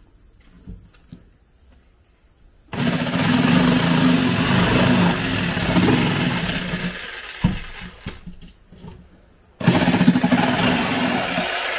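Handheld electric power tool working a wooden board in two runs: about five seconds starting near the three-second mark, then again for the last couple of seconds. A steady motor hum sits under loud, hissing cutting noise.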